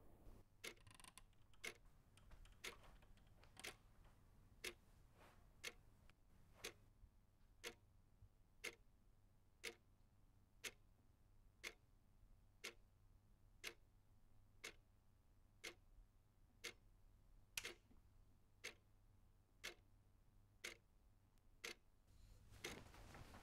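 A clock ticking faintly and evenly, about one tick a second.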